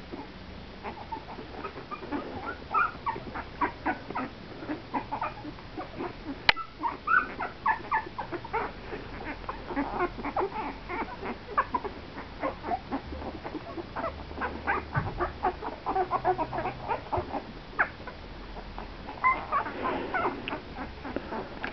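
Two-week-old Italian greyhound puppies squeaking and whimpering in many short, high calls in quick succession. A single sharp click comes about six and a half seconds in.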